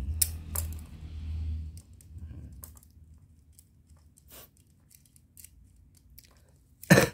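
Small clicks and taps of a U-frame fret saw's metal clamp and frame being handled as its thin blade is fitted and the handle twisted tight, with one loud sharp clack near the end.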